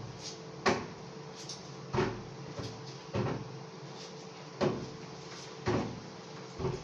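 Knife chopping pineapple on a cutting board: six sharp knocks, about one every second and a bit, over a faint steady hum.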